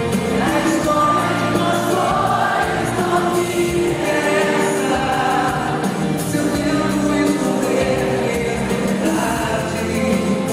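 Live performance of a Brazilian pop ballad: a singer's voice with held notes over band accompaniment, with a choir-like fullness of many voices.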